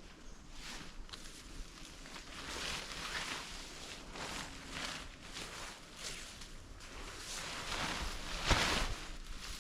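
Repeated rustling swishes of camp gear being handled and packed up as a tarp shelter is taken down, irregular and loudest near the end.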